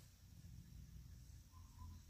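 Near silence: faint outdoor background with a low rumble and a faint steady high-pitched tone, with a brief faint note near the end.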